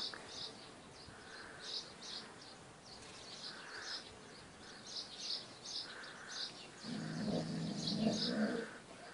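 Small birds chirping repeatedly in short high calls. About seven seconds in, a low pitched rumble lasts for about a second and a half.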